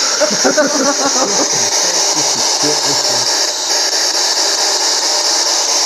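P-SB11 spirit box sweeping radio frequencies, giving a loud, steady static hiss.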